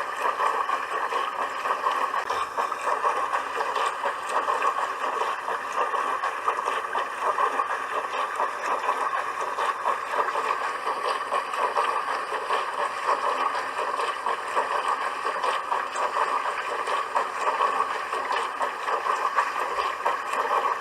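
Dishwasher running: a steady rush of water spraying and splashing inside the tub.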